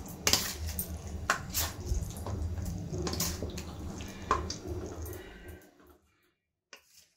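A metal serving spoon ladling chicken pieces in thick gravy onto rice in a kadai: wet plops of the chicken and gravy, with several sharp clinks of the spoon against the metal pans. A low hum runs under it and cuts off near the end.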